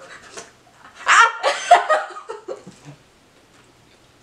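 A person laughing: a burst of giggling about a second in that lasts nearly two seconds, after a few faint breathy chuckles.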